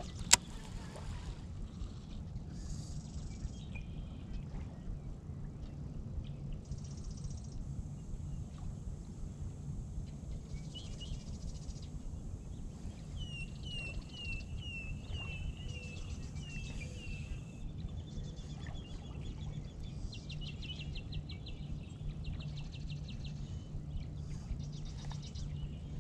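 Steady wind rumble on the microphone, with birds calling over it: a run of about eight short repeated notes around the middle and rapid trilling calls later. A single sharp click just after the start is the loudest sound.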